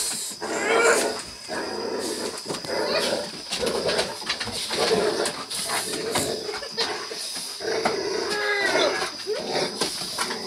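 Dogs growling and grunting in play, in rough bursts about once a second, with a few higher whining notes mixed in.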